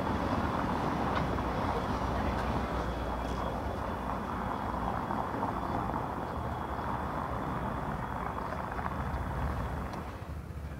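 Steady noise of street traffic with a vehicle passing close by, easing off near the end; a faint high steady whine runs under it.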